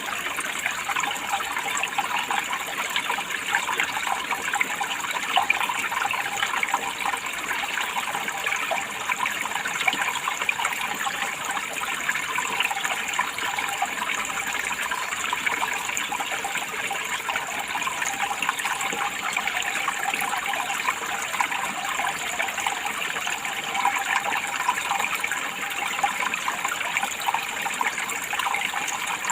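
Water running steadily, a continuous splashing rush with no pauses or changes.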